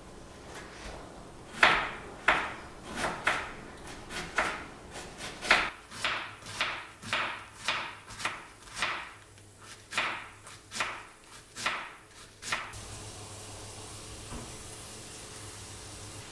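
Chef's knife shredding half a head of cabbage on a cutting board: about twenty quick cuts, roughly two a second, that stop about three-quarters of the way through.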